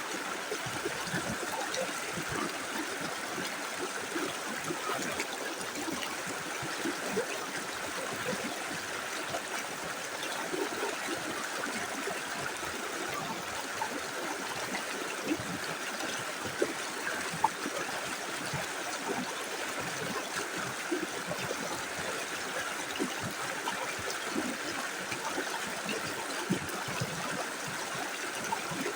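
Small river running over stones, a steady rush with small splashes and gurgles.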